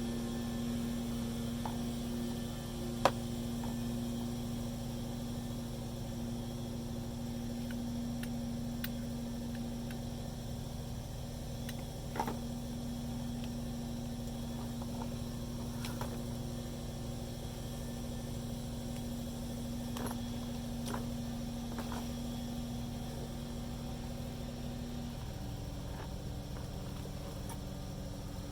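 A steady mechanical hum with a constant tone that shifts slightly higher near the end, and a few sharp clicks and taps of parts and tools being handled.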